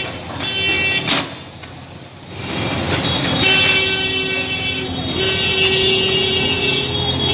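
Vehicle horns honking in street traffic: a short honk at the start, then, after a quieter second or so, long held honks from about three and a half seconds on, over traffic noise.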